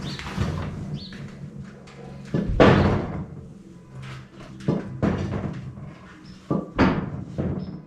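Several clunks and thumps from a Chinese ATV's front end being handled and its handlebars worked back and forth, the loudest about two and a half seconds in and another near the end.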